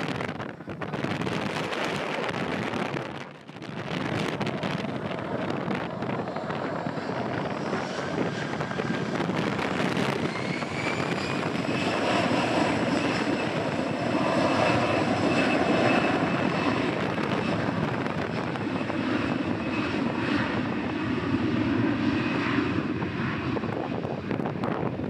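Airbus A320's CFM56 turbofan engines spooling up for takeoff. A whine rises partway through and then holds as a steady high whine over the engines' rumble.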